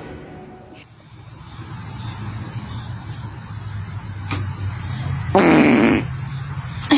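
A person farting: a low rumble that builds over several seconds, then a loud half-second burst with a falling pitch about five and a half seconds in. A steady high-pitched tone runs underneath from about a second in.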